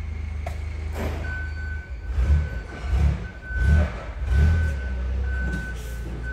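A vehicle reversing alarm beeps at one steady pitch, about once a second, starting about a second in, over a steady low engine hum. A few loud low rumbles come in the middle.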